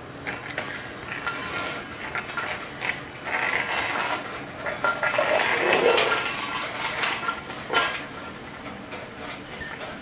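Irregular clicking and light metallic clattering as a litter of Shih Tzu puppies scrambles about on a tile floor among wire pens and metal food bowls, busiest a few seconds in, with one sharp click near the end.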